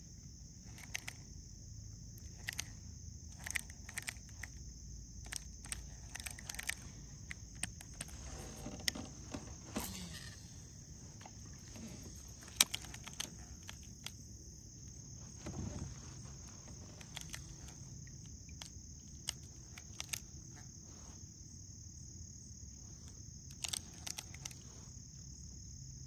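Steady high-pitched drone of insects in the creekside woods, with scattered small clicks and knocks throughout.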